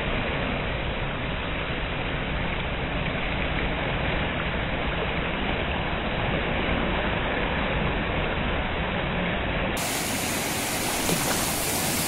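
Fast, muddy river water rushing over rocks in rapids: a steady, even noise of churning water. The low rumble underneath drops out near the end.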